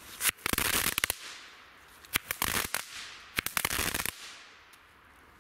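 Keller Power Balls ground firework going off in three quick bursts of crackling bangs, each under a second long and about a second apart, with a fading hiss after the last.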